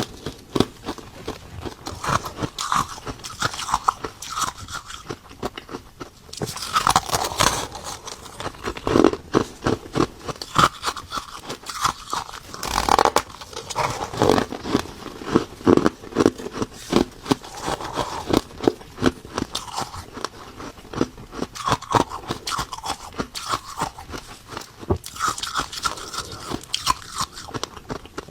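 Ice being bitten and chewed close to the microphone: a continuous run of sharp, irregular crunches and cracks.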